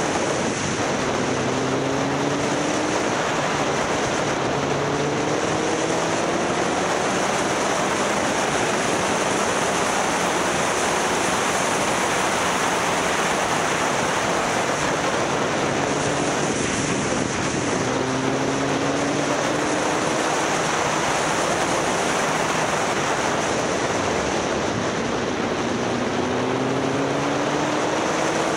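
Motorcycle riding along a road: a loud, steady rush of wind noise on the microphone, with the engine's note climbing in pitch several times as the bike accelerates.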